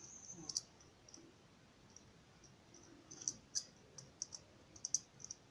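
Faint, scattered small clicks from handling a plastic inline plug socket and screwdriver as a wire is fed into the socket's terminal. The clicks are sparse at first and come more often from about three seconds in.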